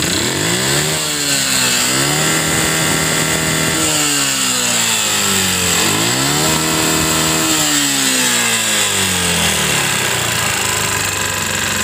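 Yamaha Jupiter MX's 135 cc four-stroke single-cylinder engine revved repeatedly, each rev rising and falling back toward idle. The engine sounds rough, having run out of oil; the mechanic puts its heavy smoking down to worn piston and rings.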